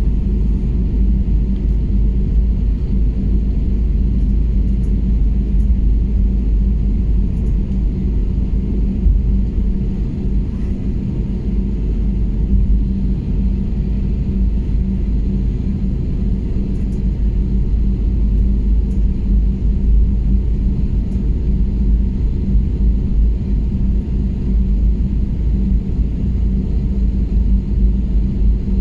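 Steady low rumble inside the cabin of an Airbus A320neo taxiing, its engines at low taxi power, with a steady low hum under it.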